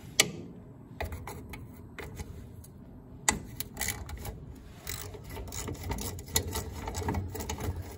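Metal nut driver unscrewing a bolt from a sheet-metal exhaust heat shield: a run of irregular clicks and scraping of metal on metal, getting busier from about three seconds in.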